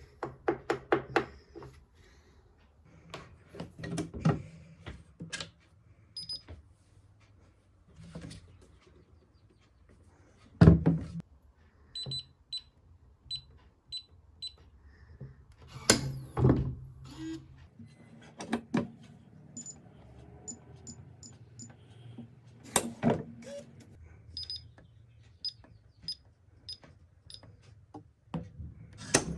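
Handling a biometric pistol safe: scattered knocks and thunks of its metal case and lid, with a few louder bumps. Three runs of short high electronic beeps, as from its keypad and fingerprint reader being used.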